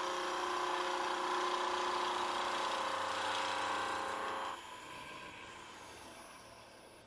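Wood lathe running while a skew chisel takes a planing cut along a spinning wooden spindle: a steady hiss of the cut over the lathe's motor hum. About four and a half seconds in, the hum stops and the sound fades away as the lathe winds down.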